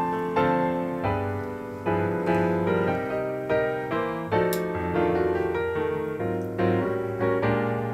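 Background piano music, with notes and chords struck about twice a second, each ringing and dying away.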